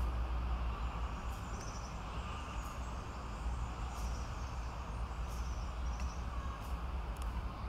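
Outdoor ambience: a steady low rumble with short, faint bird chirps every second or so.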